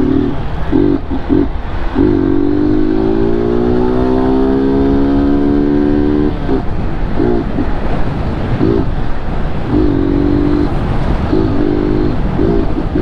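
BMW G 310 GS single-cylinder motorcycle with a modified exhaust, under way with steady engine and wind noise. About two seconds in, a pitched tone rises slowly for about four seconds, then cuts off. It is followed by a run of short pitched blasts.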